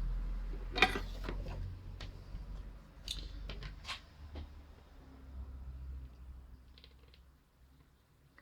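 Bench-work handling noise: a handful of sharp clicks and light knocks over a low rumble, the loudest click about a second in, as tools and the radio's circuit board are handled.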